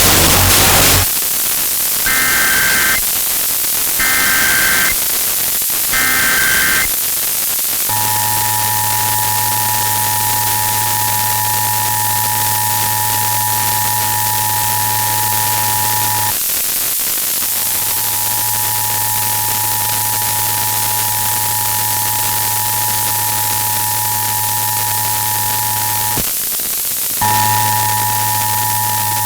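Emergency Alert System test tones heard through heavy static hiss. After a burst of loud static, three short warbling data bursts (the SAME header) sound, followed by the steady two-tone attention signal. The attention signal cuts out briefly twice.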